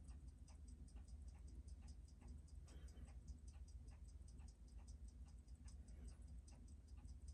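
Seiko 6105B automatic watch movement ticking faintly and evenly, about six beats a second, as it runs on a timing machine. The freshly restored movement, with a new balance, holds a steady amplitude.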